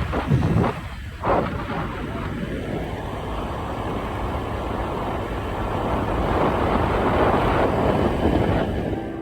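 Wind buffeting the microphone: a steady rushing rumble with a few sharp thumps in the first second and a half, fading out near the end.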